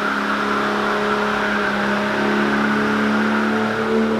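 Four-wheel drive's engine held at high revs while its tyres spin on wet concrete, with a steady hiss of spinning tyres and water spray under the engine note. The engine note climbs slightly near the end.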